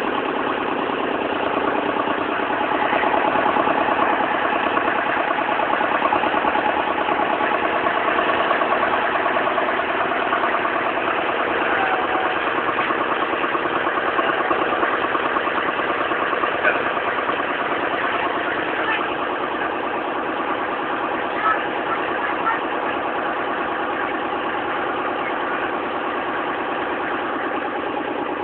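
Boat engine running steadily at a constant speed, with a few faint clicks in the second half.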